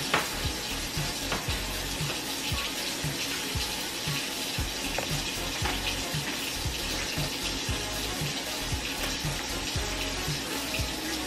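Steady sizzling hiss of sausage and a pancake frying in pans, with background music's low beat thumping about twice a second underneath.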